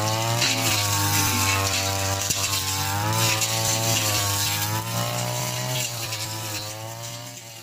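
Backpack brush cutter's small engine running under load as it cuts grass, its pitch rising and falling as the operator works. The sound fades out over the last couple of seconds.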